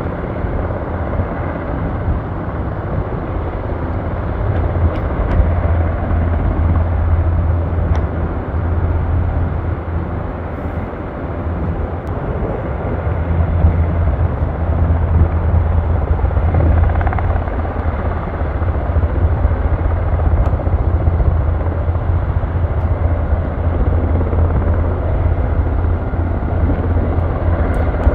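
Surion firefighting helicopter flying nearby: a steady, loud rotor and engine noise that grows a little louder about halfway through.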